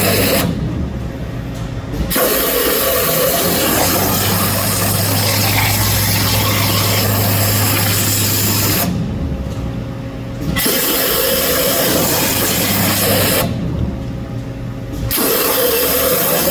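CNC waterjet cutting 12 mm silicone: the high-pressure jet hisses loudly over the low hum of the pump. The jet cuts off three times, near the start, about nine seconds in and about thirteen seconds in, for about a second and a half each, leaving only the hum.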